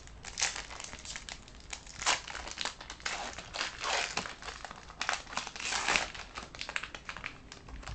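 A foil trading-card pack wrapper being torn open and crinkled by hand, in irregular crackly bursts, loudest around four and six seconds in.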